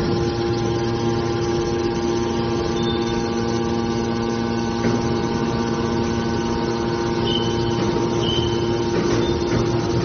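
Hydraulic baling press for aluminium cans running, its electric motor and hydraulic pump giving a steady hum. A few short high tones sound in the second half.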